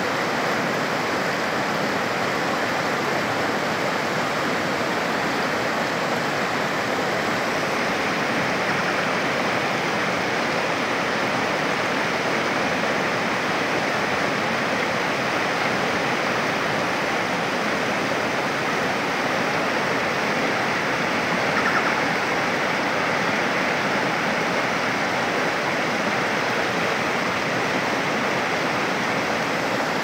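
Fast-flowing shallow stream rushing over stones, a steady, even rush of water.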